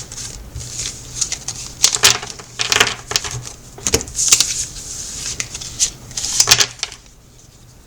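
Tarot cards being handled and shuffled by hand: an irregular run of soft slaps, flicks and brushing noises that stops near the end.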